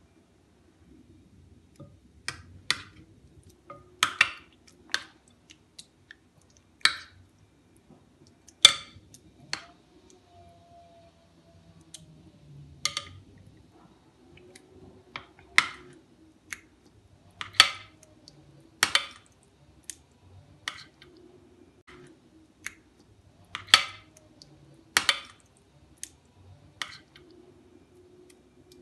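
Metal spoon clinking against a glass mixing bowl as chicken drumsticks are turned in a thick marinade: irregular sharp clinks every second or two.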